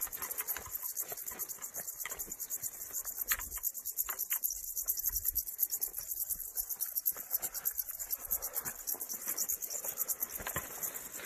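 Dense, high, rapidly pulsing chirring of grasshoppers and bush crickets in dry grass, with irregular swishing of footsteps brushing through the tall grass.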